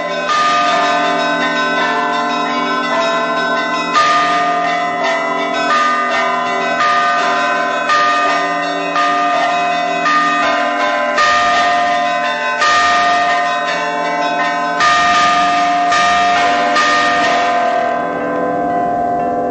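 Church bells ringing, several bells struck over and over at about one stroke a second, their tones overlapping and ringing on. Near the end the strokes stop and the ringing dies away.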